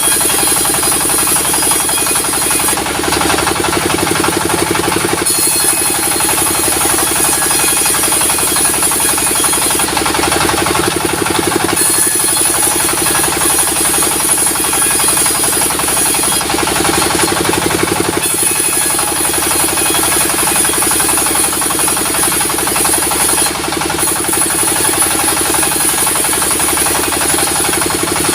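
A sawmill's engine-driven saw running steadily, with a fast, even engine beat. A high whine above it drops away briefly about four times.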